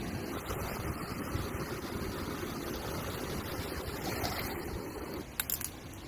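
Wind buffeting the microphone, a steady rumbling noise that drops away about five seconds in, followed by a couple of short clicks.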